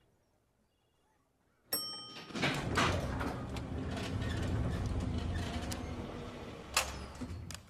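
A sharp metallic ding about two seconds in, then a loud, low rumbling slide lasting about five seconds, with a sharp click near the end: elevator doors sliding.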